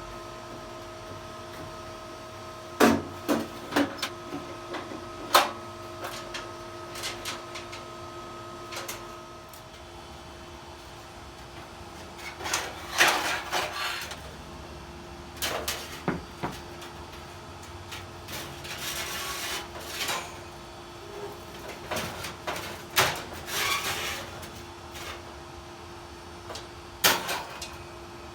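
Handling noises: a few sharp clicks and knocks, then stretches of scraping or rustling, over a steady hum.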